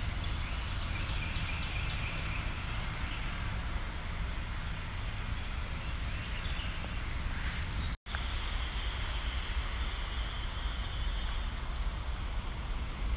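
Outdoor ambience: a steady low rumble with a continuous high-pitched insect whine that cuts off abruptly at a brief dropout about eight seconds in, followed by faint chirping.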